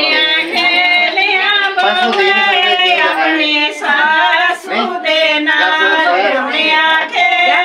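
Female voice singing a song with long, held, wavering notes.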